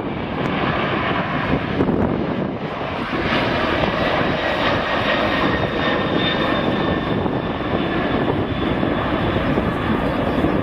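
Boeing 767's twin turbofan engines at takeoff thrust as the airliner lifts off and climbs out: a loud, steady rushing rumble with a thin high whine over it, growing a little louder about three seconds in.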